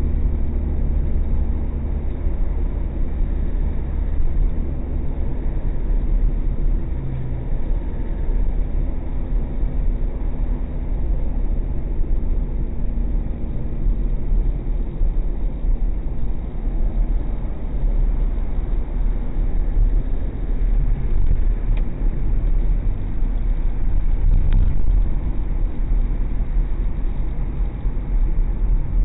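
Steady low rumble of a car driving at highway speed: engine and tyre noise heard from inside the cabin through a dashcam's microphone.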